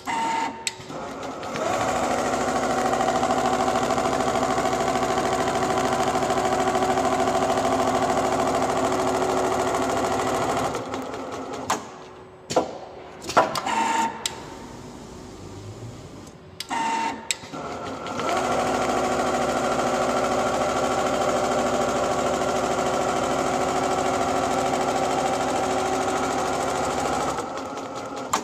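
Richpeace computerized automatic sewing machine stitching through fabric and 3 cm sofa foam, running steadily in two long stretches of about nine seconds each. Between them it pauses, and a few sharp clicks and knocks are heard.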